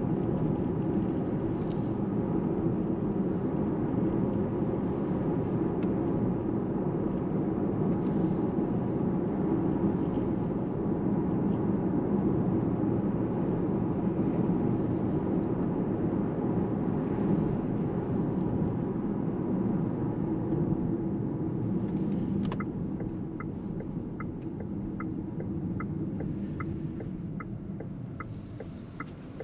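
VW ID.7 electric car driving: a steady road and tyre rumble with no engine note, easing off in the last few seconds. About three quarters of the way in a regular ticking starts, about three ticks every two seconds.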